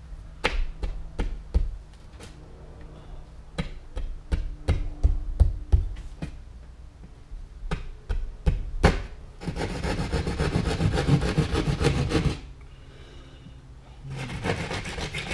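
Hand-cutting an electrical box opening in a drywall wall: a series of sharp taps and knocks, then about three seconds of rapid rasping saw strokes, with another short bout of sawing near the end.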